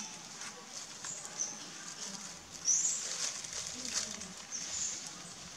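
A few short, high-pitched chirps a second or so apart, the loudest about two and a half seconds in, over faint rustling in dry leaf litter.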